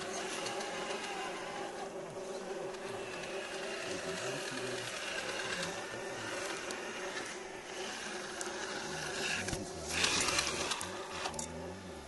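Small electric motor and gearbox of a radio-controlled scale crawler whining steadily as it drives, the pitch shifting with the throttle, with a louder burst of noise about ten seconds in.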